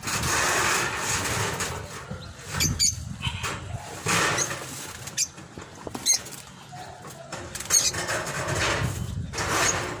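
Plastic tarpaulin rustling and crinkling in swells as it is pulled and spread over a metal frame, loudest at the start, with short high chirps from caged birds now and then.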